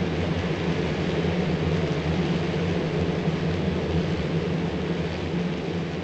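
Steady buzzing hum of a honey bee swarm, thousands of bees on the wing as the colony pours out of the hive entrance. This is the colony swarming, with the bees waiting for the queen to come out.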